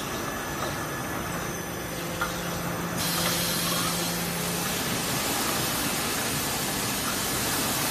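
Automatic carpet washing machine running with water spraying: a steady hiss that turns louder and brighter about three seconds in, over a low machine hum.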